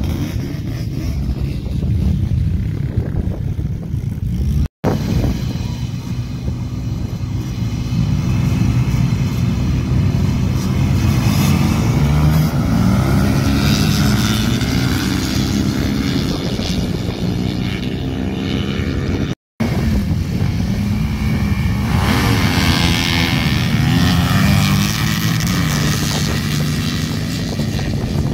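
Quad and dirt bike engines revving hard and racing down a sand drag strip, their pitch rising and falling as they accelerate and shift. The sound cuts out briefly twice.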